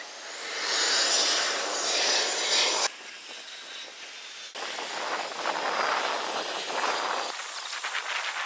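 Jet aircraft noise heard as a broad hiss, in two loud stretches that start and stop abruptly: the first cuts off about three seconds in, the second runs from about four and a half to seven seconds in. A short rising whine comes near the start.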